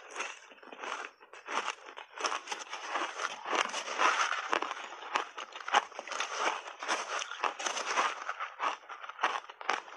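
Close-up chewing of refrozen shaved ice: rapid, dense crunching and crackling as the icy mouthful is bitten and ground between the teeth, picked up close by a clip-on lapel microphone.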